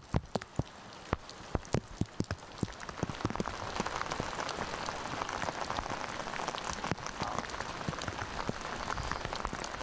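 Rain: for the first few seconds, separate large drops strike a hard surface close by in sharp ticks, then from about three seconds in a steady, denser rain noise takes over.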